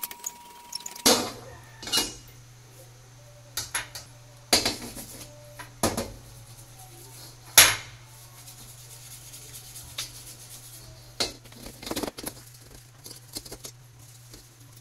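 A steel wok clanking and scraping against the metal grate of a gas burner as it is tilted and shifted over the flame to heat its oil coating during seasoning. The knocks come at irregular intervals, and the loudest is about halfway through.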